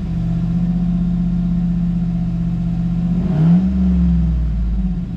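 Chevy Silverado pickup's engine idling steadily, revved once about three seconds in, the revs rising briefly and then settling back to idle.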